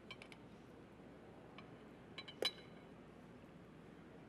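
Faint clinks of metal tongs against the pan and serving plate as tagliatelle is lifted out: a few light ticks at the start, then two more about two and a half seconds in, the second the loudest with a short ring.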